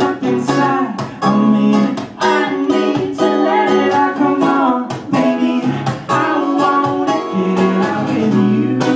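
Acoustic guitar strummed in chords, played live as a song's introduction.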